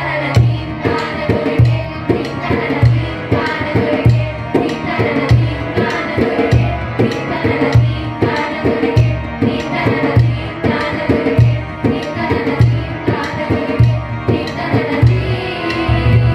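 Indian song with a steady tabla beat, children's voices singing over the accompaniment. A sustained low tone comes in right at the end.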